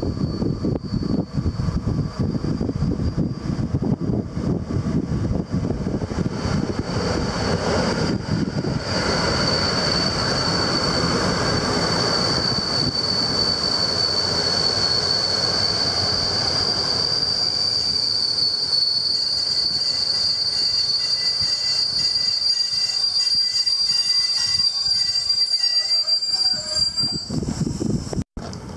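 Train passing on the rails: a heavy low rumble for the first several seconds, with a steady high-pitched wheel squeal that grows louder about a third of the way in and holds, while the rumble dies away, until it stops abruptly near the end.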